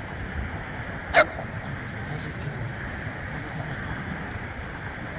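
A small dog gives one short, high-pitched yip about a second in, over a steady low background rumble.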